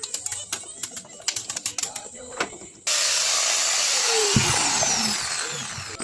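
Sharp clicks and taps of tool parts being handled, then about three seconds in an angle grinder starts up suddenly and loudly, its whine falling in pitch and fading as it winds down near the end.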